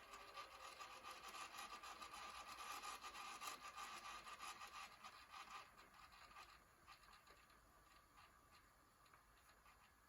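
GE VG2051 VCR rewinding a VHS tape: a faint whirring, rubbing sound of the spinning reels and tape that fades away about six seconds in, followed by a few light mechanical clicks.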